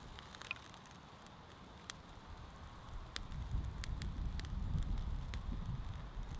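Small kindling fire of birch bark and thin twigs crackling as it catches, with scattered sharp pops. Wind buffets the microphone as a low rumble from about halfway through.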